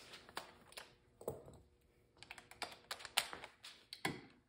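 Faint, irregular light clicks and taps of small steel bolts and a cordless drill being handled, as a quarter-20 bolt is set on the driver bit and lined up in the clutch's bolt hole. The clicks come a few at a time, then more closely halfway through.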